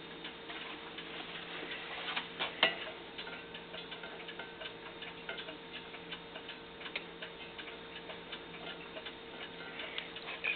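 Faint, irregular light clicks and taps over a steady low hum, with one sharper click about two and a half seconds in.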